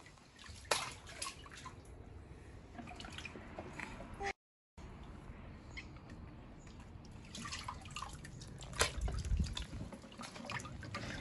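Water dripping and splashing lightly in a children's inflatable paddling pool, heard as scattered drops and small splashes. The sound cuts out completely for a moment about four seconds in.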